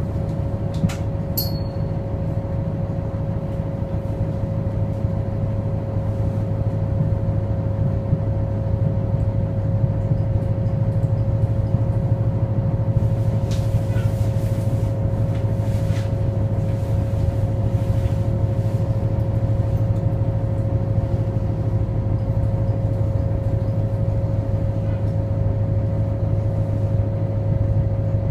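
Cabin sound of a New Flyer DE60LFR articulated diesel-electric hybrid bus: a steady low drivetrain drone with a constant high whine running through it. A few faint clicks and rattles are heard about a second in and again about halfway.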